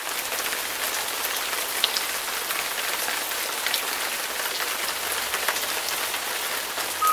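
Steady rain falling on a surface: an even hiss with scattered small drop ticks.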